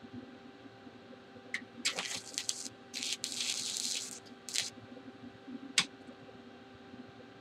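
Stick-welding arc from a 3/32-inch Lincoln Excalibur 7018 electrode set at 88 amps, laying a tack weld. It starts with a few scratchy sputters as the arc is struck, runs as about a second of steady crackling hiss, then gives a short burst and a sharp click near the end.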